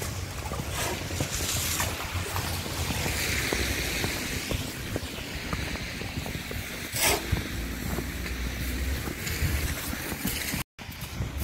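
Footsteps trudging through deep snow and slush, crunching irregularly, with wind rumbling on the microphone.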